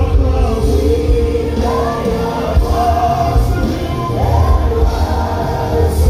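Live gospel music: singers and backing vocals over a band, played loud through stage loudspeakers.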